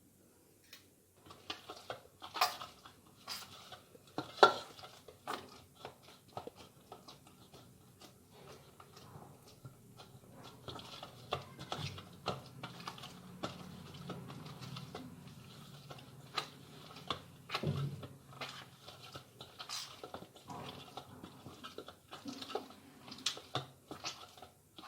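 Hands kneading soft maida dough with oil in a bowl: irregular squelches, slaps and small knocks.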